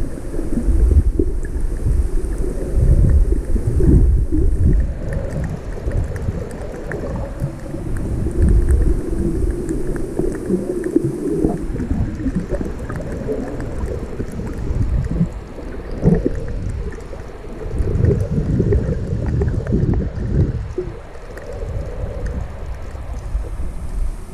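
Shallow water surging over rocks, heard underwater: a low rumble that swells and ebbs with the surge, with faint crackling ticks.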